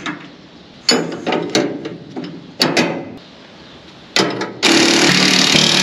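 Metal clinks and knocks in three short bursts as a bearing and its square flange are worked onto the steel fan shaft of a John Deere 9770 combine's cleaning fan. Near the end comes a loud, continuous rasping scrape of metal on metal.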